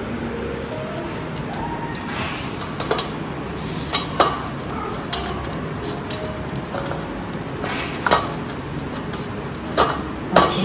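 Stainless steel murukku press and bowl clinking as dough is packed into the press cylinder by hand: a handful of sharp metal knocks, irregularly spaced, over a steady background hiss.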